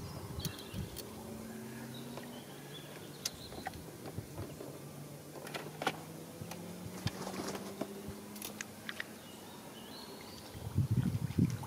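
A faint low droning hum that drifts slightly up in pitch midway, with short bird chirps and a few light clicks now and then.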